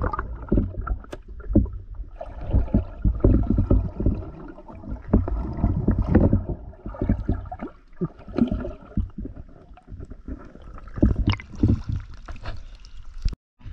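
Muffled underwater water noise from a camera held below the surface: sloshing and gurgling with many irregular low knocks and thumps as the swimmer and camera move through the water. The sound cuts out briefly near the end.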